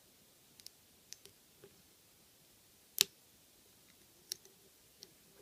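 Small, sharp clicks from a lock pick working the security pins (spools and serrated pins) inside a Draper Expert 82mm padlock. About seven scattered clicks, the loudest about three seconds in.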